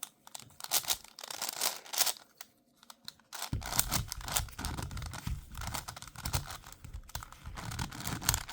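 A plastic 5x5 Rubik's cube being turned quickly by hand, a rapid irregular run of clicks and clacks as its layers snap round. About halfway through, a low rumble of handling joins the clicking.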